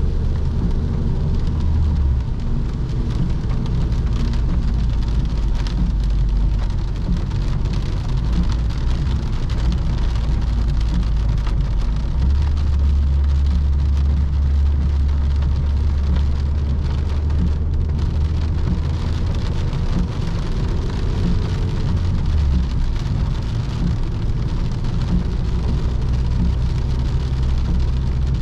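Ford Focus 1.6 petrol four-cylinder car on the move: a steady low engine drone that shifts in pitch a few times as engine speed changes, under a steady hiss of road noise.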